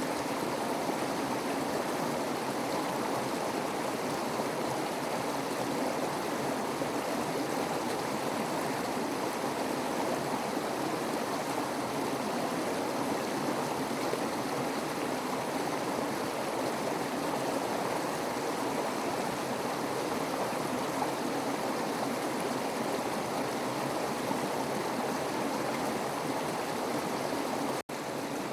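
Steady rushing of running water, even and unbroken, with a brief instant of dropout near the end.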